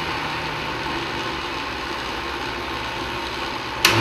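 Countertop blender motor running steadily as it whips a thick hydrogen peroxide and xanthan gum paste, with a sharp click near the end.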